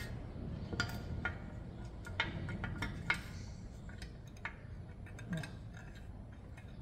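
Light metallic clicks and clinks, several scattered taps, as a steel brake spring and parking-brake shoe are handled and hooked into place by hand.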